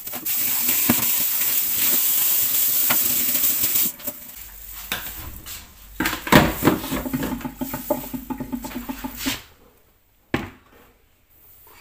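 A steady hiss for about four seconds, then dishes and utensils clattering and knocking in a kitchen, stopping near the end with one last knock.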